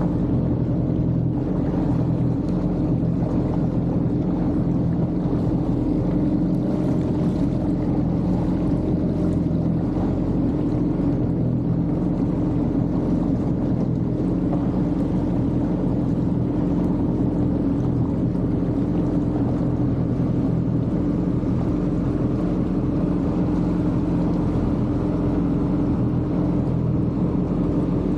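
Yamaha jet ski's engine running at steady throttle, a constant droning note that neither revs up nor drops off.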